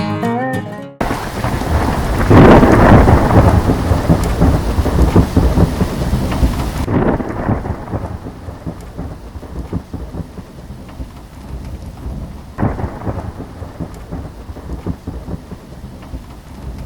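Thunderstorm: steady rain with thunder rumbling. A loud peal comes about two seconds in and a shorter one near the end. The rain hiss thins about seven seconds in.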